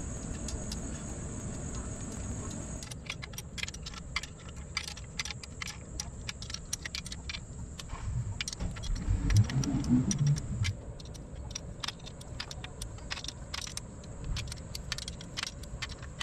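Sped-up metallic clinks and clicks of a combination wrench turning bolts on an outboard lower unit, with a steady high insect buzz. A louder low rumble comes about nine to ten seconds in.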